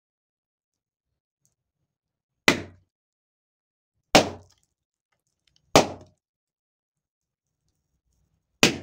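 Latex balloons popped one at a time with a knife blade: four sharp pops, each dying away quickly, the first about two and a half seconds in and the last near the end.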